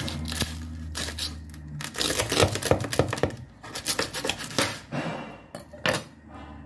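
Knife cutting through the crisp crackling skin of a roasted pork belly: a dense run of sharp crunches and crackles in the middle, then one last crunch near the end.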